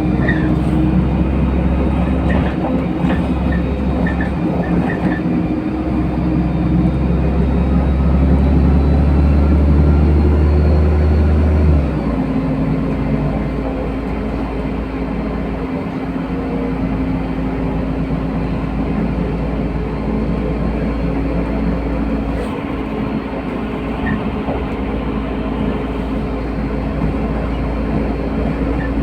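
LiAZ-5292 city bus driving, heard from inside the cabin: steady engine and transmission drone with road noise. About twelve seconds in, the deep engine hum drops off abruptly and a steady whine carries on.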